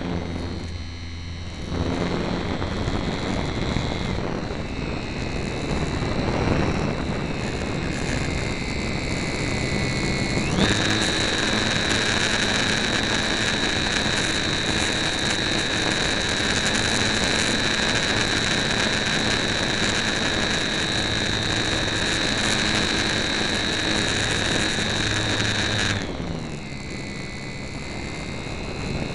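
Electric motor and propeller of a HobbyZone Super Cub RC airplane whining, heard from a camera on the plane with wind rushing past. The whine jumps up in pitch about ten seconds in and holds steady and loud, then drops to a lower, quieter tone a few seconds before the end as the throttle is pulled back.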